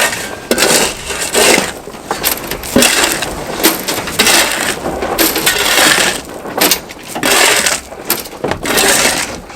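Shovels scraping and scooping loose asphalt millings off a trailer, a gritty scrape roughly once a second.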